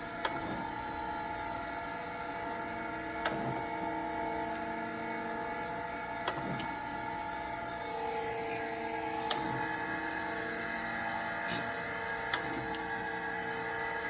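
A Proth automatic surface grinder running in automatic mode makes a steady hum of its motors. Sharp clicks come about every three seconds, and a few more follow near the end.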